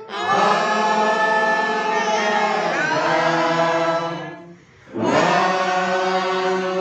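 A group of voices singing a hymn together in long, held phrases, with a brief break for breath about four and a half seconds in before the next phrase begins.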